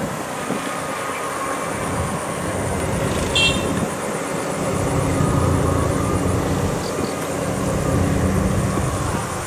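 Yanmar YH850 combine harvester's diesel engine running steadily, growing somewhat louder about halfway through.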